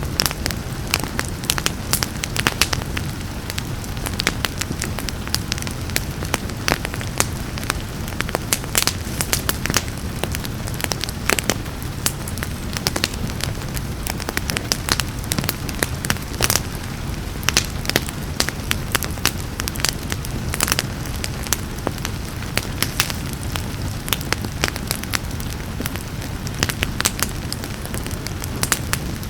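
Wood fire crackling and popping, with many sharp snaps over a steady low rumble of burning, mixed with a soft hiss of rain.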